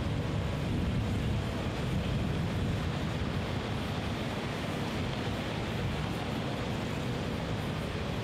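Steady low rumble of wind buffeting the microphone outdoors, with no distinct events.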